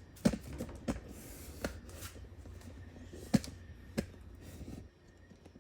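Handling noise from working on a portable clothes dryer: about five sharp clicks and knocks of its parts being moved, over a low steady hum that stops near the end.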